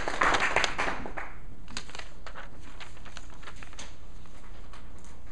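Small audience clapping, fading out about a second in, then a few scattered faint taps and clicks over a low room hum.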